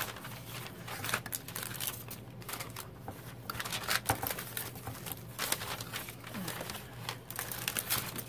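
Paper and cellophane packaging rustling and crinkling in irregular handfuls as craft papers and plastic-sleeved packs are handled and pulled from a box.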